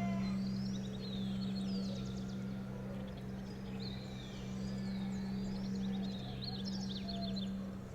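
Songbirds chirping and trilling in countryside ambience over a steady low hum.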